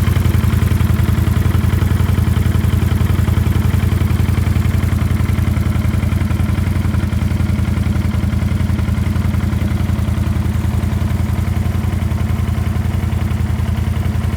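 Can-Am Outlander 650 XMR's Rotax V-twin engine idling steadily once warm, with the engine knock it has had now quieted down to where it can barely be heard.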